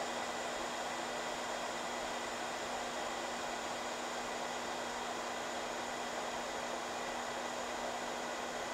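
Steady fan hiss with a constant low hum from electronics-repair bench equipment.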